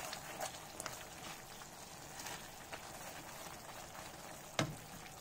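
Ground chili, garlic and onion sambal paste sautéing in a frying pan, a low sizzle and bubbling while a silicone spatula stirs and scrapes through it. One sharper knock about four and a half seconds in, the spatula against the pan.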